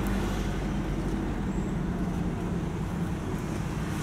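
Steady engine and tyre noise of a vehicle driving, heard from inside the cabin, a low even hum.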